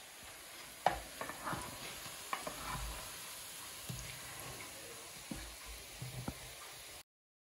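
Buñuelos deep-frying in a pan of hot oil: a steady sizzle, with scattered taps and clicks of a wooden spoon turning them in the pan, the loudest about a second in. The sound cuts off abruptly near the end.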